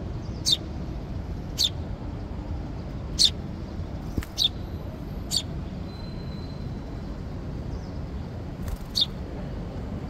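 A sparrow fledgling chirping: six single short chirps, each falling in pitch, spaced irregularly about one to three seconds apart, over a steady low background rumble.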